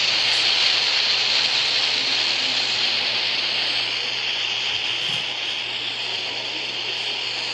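Turboprop airliner engines running, a steady rushing roar that slowly fades.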